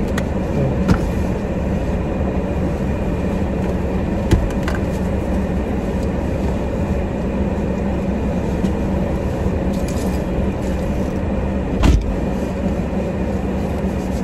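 Steady hum of a parked car running, heard from inside the cabin. A few light knocks, then a louder thump near the end.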